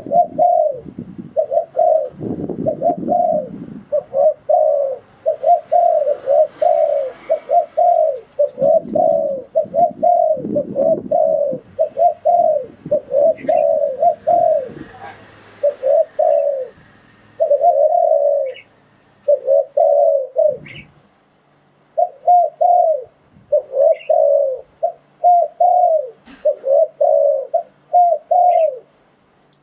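Spotted dove cooing: a long run of short, low coos following one another with brief gaps, the kind of call recording used as a lure for trapping wild doves. A few faint, very short high chirps come in now and then.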